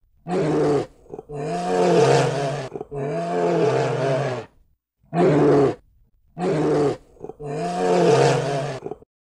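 Bear roaring: six deep growling roars in two groups of three, some short and some about a second and a half long.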